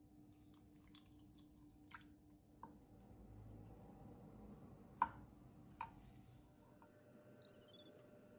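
Faint cooking sounds: a brief pour of orange juice into a saucepan, then a few sharp clicks and knocks of the pan and utensils, the loudest about five seconds in.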